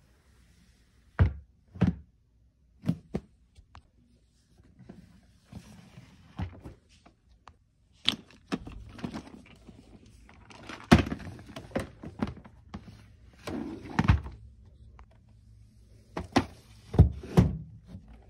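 Plastic storage tubs and a compartment organiser case being handled and set down: a string of irregular hollow knocks and thunks with scuffing handling noise between them. The loudest knocks come about two-thirds of the way in and near the end.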